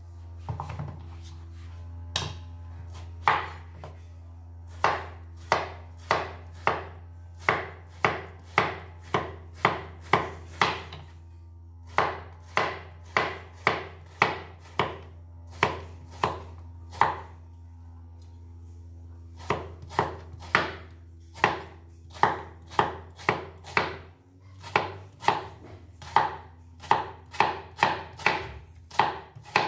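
Cleaver chopping peeled squash on a plastic cutting board: sharp knocks about twice a second, with a couple of short pauses. A steady low hum runs underneath and stops near the end.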